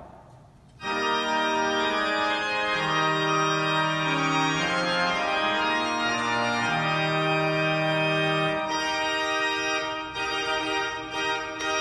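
Pipe organ coming in about a second in, playing slow, sustained chords over a bass line that moves every second or two.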